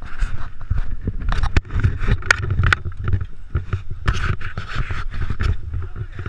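Rumbling wind on a small action camera's microphone, with repeated sharp knocks and scrapes as the camera is gripped and moved by hand.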